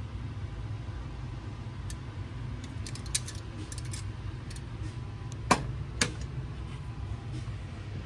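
A steady low room hum with a few faint, light clicks, then two sharper clicks about half a second apart about five and a half seconds in.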